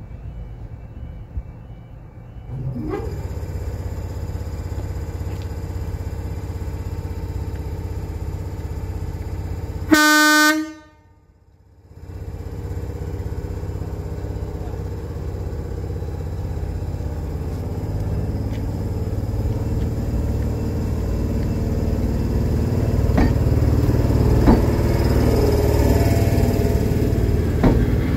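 British Rail Class 43 HST power car's diesel engine idling, then opening up about three seconds in as the train moves off, its rumble growing louder as it draws past. One short horn blast about ten seconds in.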